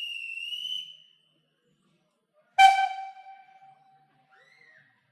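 Steam locomotive whistles from a field recording. A high, shrill whistle note ends about a second in. A sharp, lower-pitched whistle blast comes about two and a half seconds in and rings away over a second or so.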